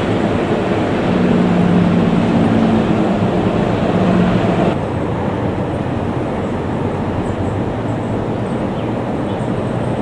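Jet airliner engines running, a steady loud rumble with a low hum in the first few seconds. About five seconds in, the sound cuts abruptly to a quieter, duller rumble from an Airbus A321-211's engines on the runway.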